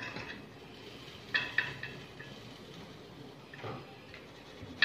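A plastic flour sieve knocking against the rim of an aluminium mixing bowl while flour is sifted, each knock followed by a brief metallic ring: two light knocks about a second and a half in, a fainter one near the end.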